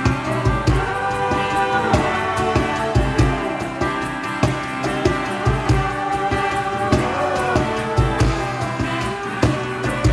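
Band music: a steady drum-kit beat with a bending melodic lead line over it.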